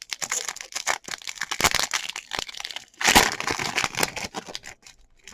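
Trading card pack wrapper crinkling as it is handled and opened, in irregular crackling bursts, loudest about three seconds in.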